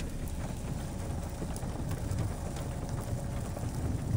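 Wind rumbling on the microphone, with scattered raindrops pattering.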